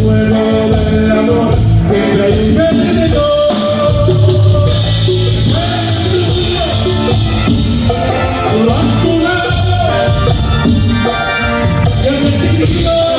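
Live Tejano band playing an amplified song, loud and continuous, with bass, drums and sustained melody lines. No sung words come through in this stretch.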